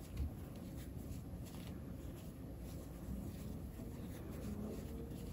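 Faint rustling and scratching of yarn drawn through the stitches by a crochet hook as stitches are worked, with a soft low bump just after the start.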